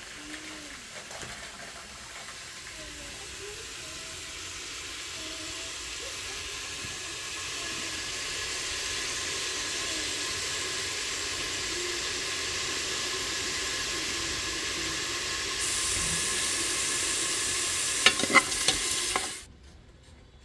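Steady hiss of falling rain, growing louder over the first several seconds, with a few sharp clicks near the end before it cuts off abruptly.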